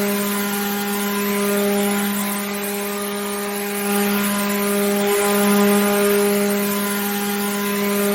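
Electric water pump running steadily: a constant motor hum over an even hiss, swelling and easing slightly in loudness.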